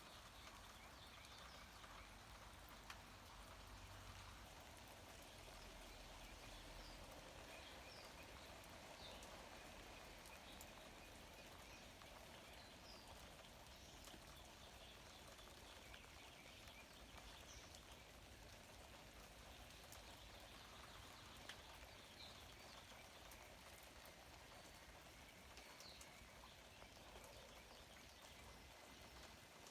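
Faint, steady light rain falling on grapevine leaves, with scattered single drops ticking.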